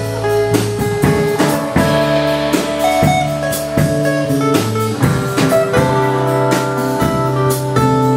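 Band music with electric guitar and drum kit playing an instrumental passage, with no singing.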